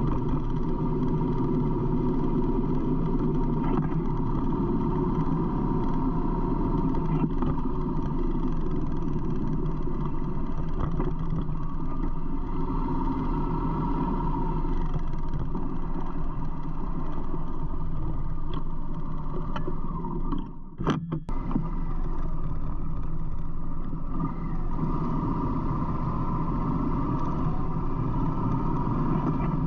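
Harley-Davidson V-twin motorcycle engine running steadily while riding, with wind noise on the fairing-mounted microphone. A short break with a couple of clicks comes about two-thirds of the way through.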